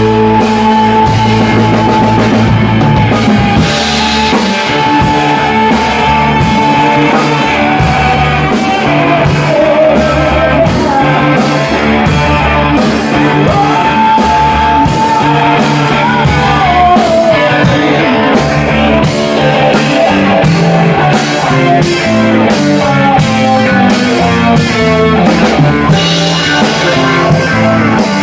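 Live rock band playing loud: a drum kit beating a steady rhythm, an electric bass, and an electric guitar, with a woman singing long, sliding lead lines over them.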